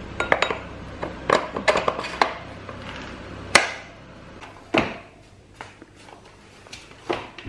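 Irregular sharp metal clicks and clinks from hand tools working on a dirt bike's rear axle and chain adjuster, the loudest about three and a half seconds in.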